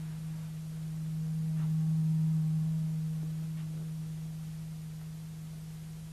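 Steady low electronic hum on a single pitch, swelling about two seconds in and then slowly fading, with a few faint clicks.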